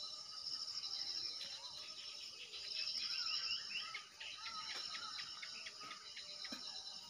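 Birds chirping in quick, varied calls over a steady, high-pitched insect trill; the chirping is busiest in the middle.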